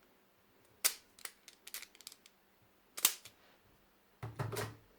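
Plastic magnetic building tiles clacking as they are handled and set down. Two sharp clicks about two seconds apart, with lighter ticks between them and a cluster of duller knocks near the end.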